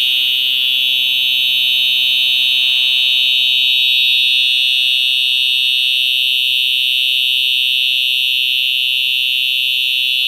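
Simplex TrueAlert 4903-9425 fire alarm horn sounding continuously in drill mode: one loud, steady, unbroken high-pitched tone.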